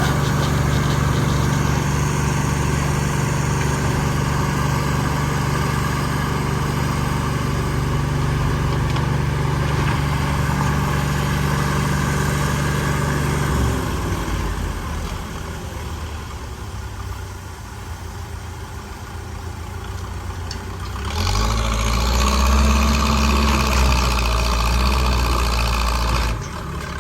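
Backhoe loader's diesel engine running under steady load. It eases down about fourteen seconds in, then runs up loudly again around twenty-one seconds and drops back near the end.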